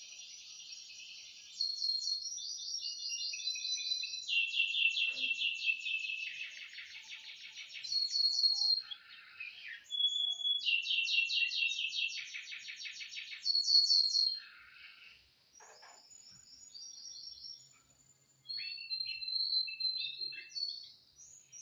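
Domestic canary singing: long phrases of rapid, rolling trills and repeated high notes, broken by short pauses. A quieter stretch of a few scattered notes comes about two-thirds of the way through before the song picks up again.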